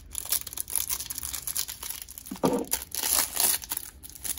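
Crinkling plastic wrapping being torn open and pulled off a stack of trading cards, with a louder rustle about two and a half seconds in.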